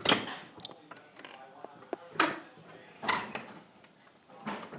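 A door being pushed and rattled: four sharp, unevenly spaced clicks and knocks from the latch and handle.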